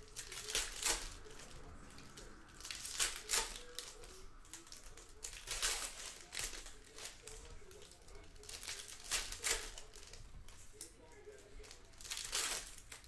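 Trading-card pack wrappers crinkling and tearing as packs of cards are opened and handled, in short bursts every few seconds.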